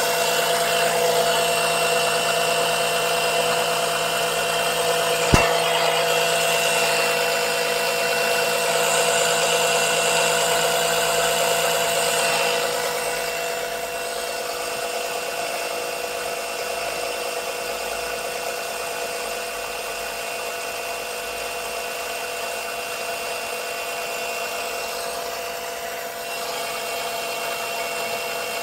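A small electric oil-extractor suction pump runs steadily with a constant whine, pulling too weak a vacuum to lift much of the thick oil. There is one sharp click about five seconds in, and the pump note drops a little in level about halfway through.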